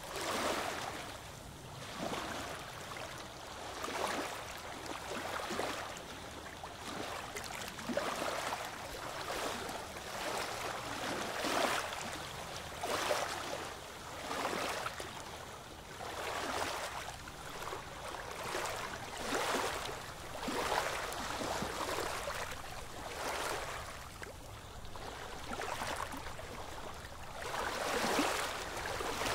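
Oars of a small wooden rowboat dipping and pulling through calm water, a splash and swish with each stroke, roughly every two seconds, over a steady lapping of water.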